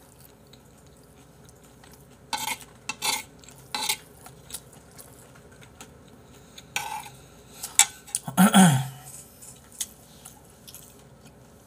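Metal spoon clinking and scraping against a ceramic bowl of potato sujebi soup as it is scooped, in a few short clicks, with one louder, longer noise about eight and a half seconds in.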